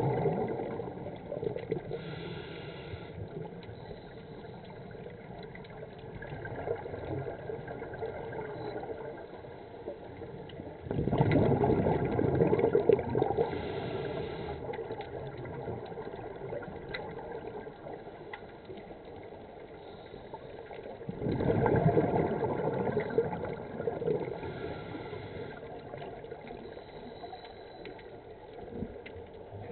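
Scuba diver breathing underwater through a regulator: exhaled bubbles gurgle out in three surges of a few seconds each, about ten seconds apart, with quieter bubbling between.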